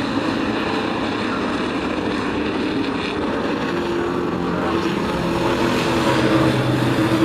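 A pack of sport-class racing trucks at speed on an oval track, their engines droning together in one continuous mass. About four seconds in, a single clear, steady engine note stands out, and the sound grows slightly louder toward the end.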